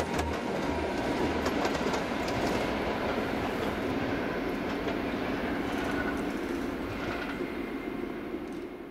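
Train running along the track: a steady rolling rumble with clicks of wheels over rail joints in the first couple of seconds, fading out near the end.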